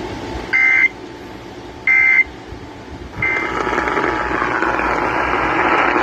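Emergency Alert System end-of-message data: three short, harsh two-tone digital bursts about a second apart, marking the end of the test alert. A steady rushing noise takes over from the third burst onward.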